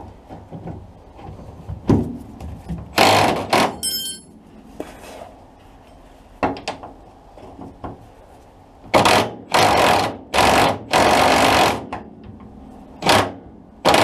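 Impact gun hammering on a bolt in repeated short bursts of about half a second to a second, four of them close together about two thirds of the way in, undoing the rear axle mounting bolts.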